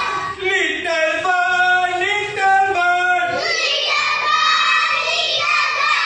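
A class of young children singing a song together, a melody moving in steps between steady notes.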